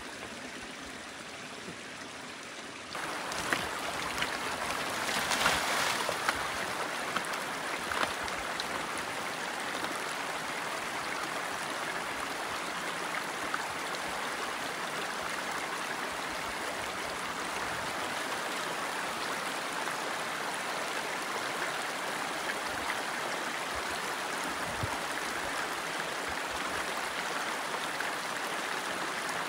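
Mountain stream running over rocks, a steady rushing that gets louder about three seconds in. A few sharp knocks stand out between about three and eight seconds in.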